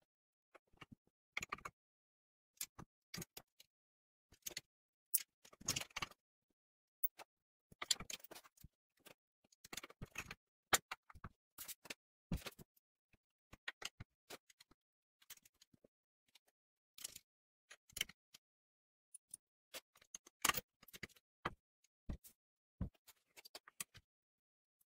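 Irregular clicks and knocks of steel parts, bolts and washers being handled and fitted together as a painted steel carriage for an angle-grinder stand is assembled by hand, with short pauses between.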